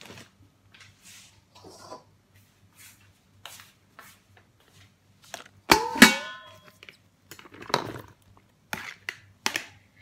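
Short rustles and light taps of kitchen handling. About six seconds in comes a loud clatter with a brief ringing as a plastic colander holding a wire whisk knocks into a plastic basket. A few sharper knocks follow near the end.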